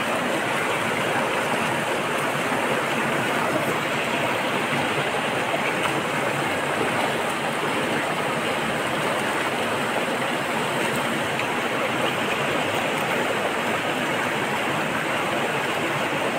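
Mountain river rushing over rocks: a steady, even rush of water.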